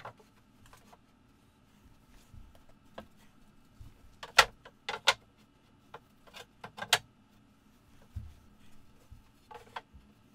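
Loose pine boards being set down and slid into place side by side, knocking and clacking against each other and the surface beneath in a scattered series of sharp knocks. The loudest knocks come in a cluster about four to five seconds in, with another few around seven seconds.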